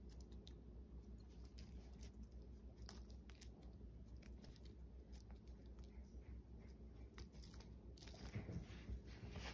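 Faint scattered clicks and rustles of a kitten pouncing and scrabbling on a rug after a feather wand toy, busier near the end, over a low steady hum.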